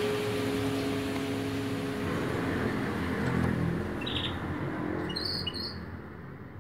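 Crystal singing bowls ringing with steady tones that fade out about two seconds in, leaving a soft hiss that slowly fades down. A few short bird chirps come in near the end.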